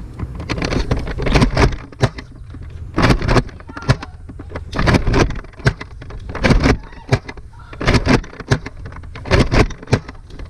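A string of irregular knocks, clatters and rustles, about fifteen in all, some close together, over a steady low rumble.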